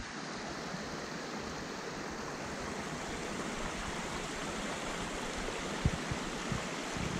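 A small forest stream running with rainwater runoff, a steady rush of water. A couple of soft low thumps come near the end.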